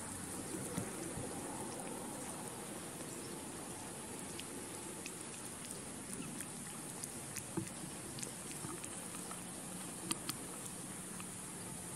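Mother cat licking her newborn kittens: soft wet licking with scattered small clicks and ticks, a few louder ones about a second in, near two-thirds through and near the end, over a steady low hiss.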